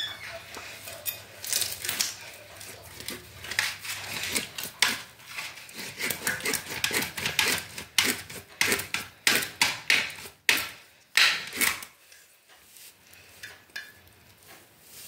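A knife scraping and cutting at a whole raw fish while it is cleaned over a stainless-steel plate, in quick irregular strokes with clinks of metal on the steel. The strokes stop about twelve seconds in.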